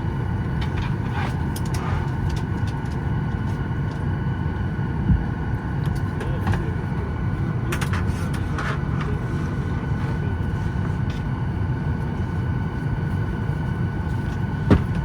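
Steady hum of an airliner cabin's air-conditioning at the gate, with a low rumble and a faint high whine, while the engines are not yet started. A few light clicks and two soft thumps sound over it, about five seconds in and near the end.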